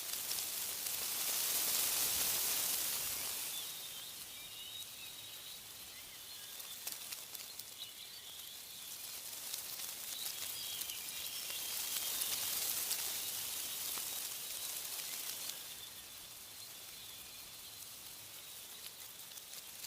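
Wind rustling through tree leaves, swelling in two gusts about two seconds in and around twelve seconds, with faint bird chirps throughout.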